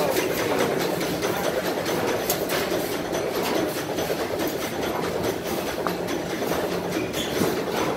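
Antique stationary gas engines running, a steady mechanical clatter of valve gear and ignition with rapid fine clicks throughout.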